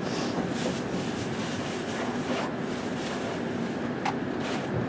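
Strong wind blowing hard, a steady low rumbling noise without a break.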